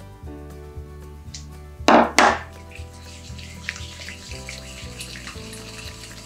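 Wire whisk mixing creamed butter and beaten egg in a glass bowl: light scraping and small clicks of the wires against the glass, with two loud clatters close together about two seconds in. Steady background music plays throughout.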